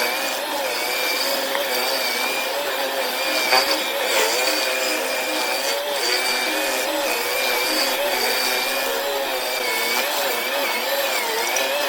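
Stump grinder running with its engine under load, the pitch wavering up and down as the cutting wheel works, with a short sharp click about three and a half seconds in.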